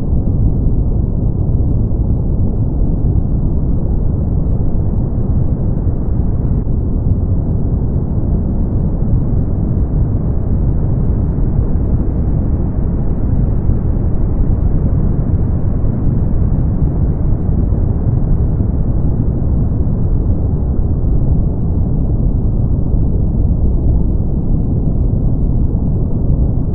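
Steady synthetic brown noise: an even, deep hiss, strongest in the bass and fading toward the treble, with almost nothing in the highs.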